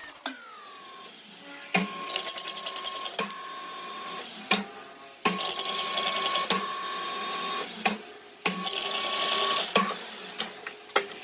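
A small machine running in three short bursts, each a rapid chatter with a steady whine over it, separated by sharp clicks.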